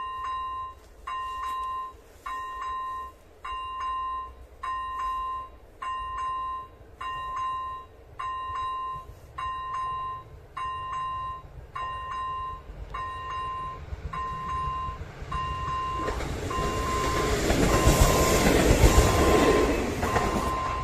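Electronic bell of an AŽD 97 level crossing ringing about once a second, a single tone with overtones, warning of an approaching train. From about nine seconds in a passenger railcar's rumble grows, and the railcar runs past, loudest near the end.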